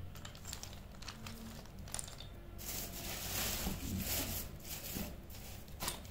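Broken white chalk pieces clicking against each other and the foil as a hand sorts through them in a foil-lined tray, then, from a little over two seconds in, about three seconds of louder crinkling rustle.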